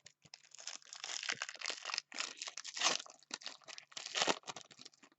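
Crinkling and crackling of a foil or plastic wrapper being handled, close to the microphone, with a few louder crackles in the middle and near the end.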